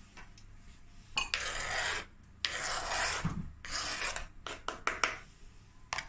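A knife blade scraping across a plastic chopping board, pushing chopped vegetables off into a glass bowl: three rasping strokes, then a few quick taps near the end.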